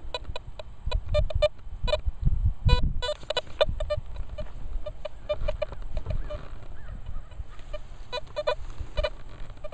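Nokta Velox One metal detector sounding short, low beeps in quick irregular clusters as its search coil is swept over a lawn, chattering on targets, under a low rumble that swells about two and a half seconds in.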